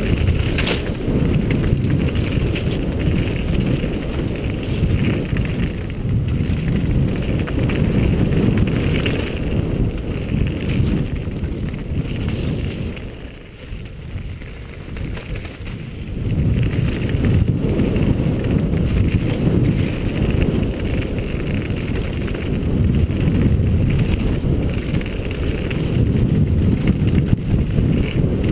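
Wind buffeting a helmet-mounted camera's microphone over the rumble and rattle of a downhill mountain bike riding fast over a rough, rocky forest trail. It eases off for about three seconds midway, then comes back as loud as before.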